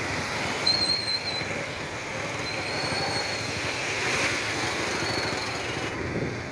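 Small motor-vehicle engine running with a rapid rattling beat while moving through floodwater on a street.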